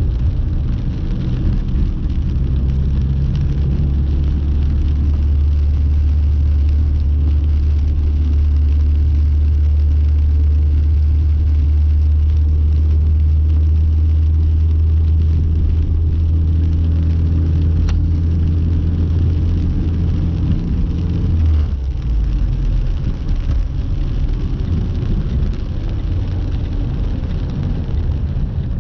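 Car driving in heavy rain, heard from inside the cabin: a steady low drone of engine and road noise under the rain. The drone eases about three quarters of the way through as the car slows.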